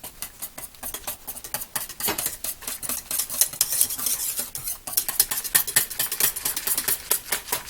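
A whisk beating milk and chocolate pudding powder in a pot, its wires clicking rapidly against the sides and bottom, busier from about two seconds in.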